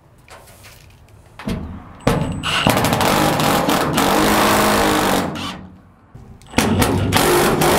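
Milwaukee cordless driver with a socket extension driving a bolt home, running in two long bursts: one of about four seconds, then a second of about two seconds after a short pause.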